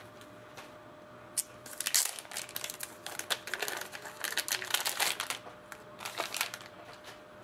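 Clear plastic wrapper crinkling and rigid plastic trading-card holders clicking against each other as a stack of cased cards is unwrapped and handled. The clicks and rustles come in an irregular run, busiest through the middle.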